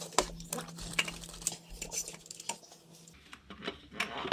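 Light metallic clinks and clicks of hand tools and engine parts being handled during reassembly, irregular, with a faint steady hum that stops about three seconds in.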